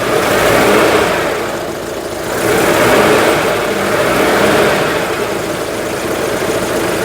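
Citroën GSA's air-cooled flat-four engine running, swelling in level twice. The bad noise the owner puts down to the alternator has gone quieter, but it comes back when the alternator is pulled on, which points to the alternator and its belt tension.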